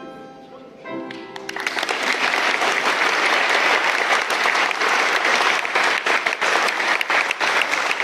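The last notes of a violin and flute duet die away, then an audience breaks into applause about one and a half seconds in, dense clapping that carries on.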